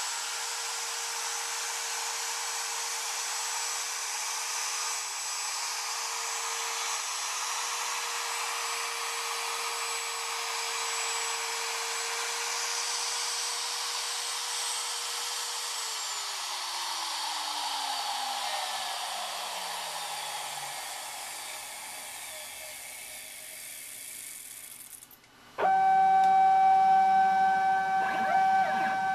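Porter-Cable router spindle on a homemade CNC machine running with a steady high whine, then switched off about halfway through and winding down, its pitch falling over about five seconds. Near the end the machine's stepper motors drive the gantry with a loud, steady electric whine.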